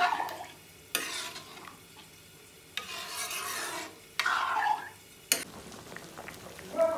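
A ladle stirring and scraping through pork curry in a metal kadai, in four separate strokes with sizzling from the hot pan. About five seconds in a sharp knock on the pan edge ends the stirring, and the curry then bubbles softly.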